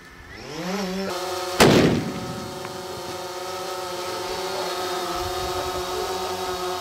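A single extreme long-range rifle shot about one and a half seconds in, the loudest sound, over the steady multi-tone hum of a hovering camera drone's propellers, which rises in pitch in the first second.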